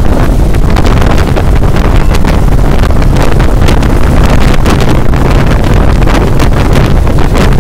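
Wind rushing over the microphone of a phone held at the open window of a moving vehicle: loud and steady, with constant buffeting and a deep rumble underneath.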